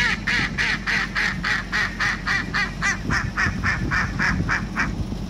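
A wild duck's recorded call played through a device speaker: a fast run of about eighteen short quacks, roughly five a second, that stops about four seconds in.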